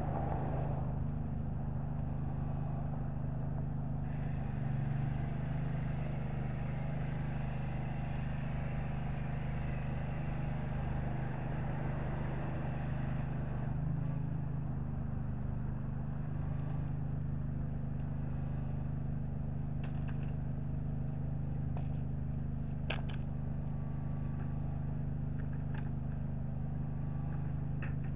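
An engine running at a steady idle-like drone, with a hiss over it for several seconds from about four seconds in and a few light clicks near the end.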